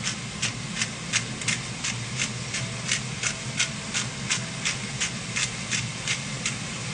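Hand-twisted spice grinder grinding seasoning: a regular run of short gritty grinding bursts, about three a second, that stops shortly before the end. A steady low hum runs underneath.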